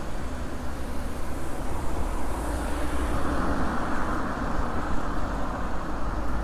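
Street traffic noise heard from a moving bicycle, with a steady low wind rumble on the microphone; the traffic swells louder a few seconds in.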